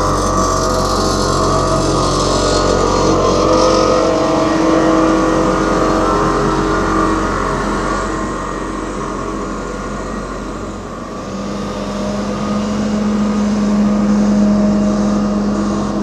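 Diesel engines of asphalt-paving machinery running steadily, with a steady hum. One tone fades out about halfway through, and a lower hum rises and swells toward the end as another machine draws near.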